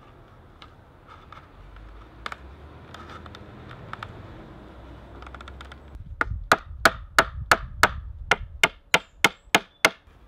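Wooden mallet driving hazel pegs into a wooden bench: a few scattered taps, then about six seconds in a quick run of about a dozen sharp knocks, roughly three a second.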